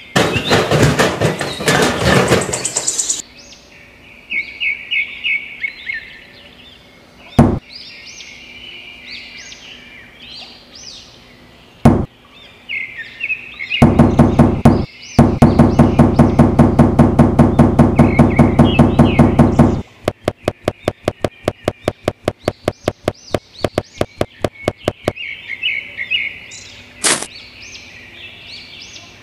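Birds chirping in the background, over a series of sharp knocks and a loud run of fast, even mechanical strokes, about six a second, that turn into lighter clicks and then stop.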